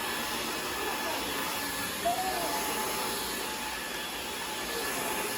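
Cordless stick vacuum cleaner running steadily, its motor and suction making a continuous even whir with a faint steady whine.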